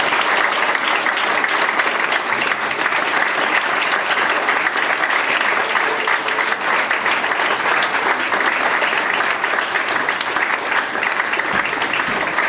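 A roomful of wedding guests applauding: many hands clapping in a dense, steady stream.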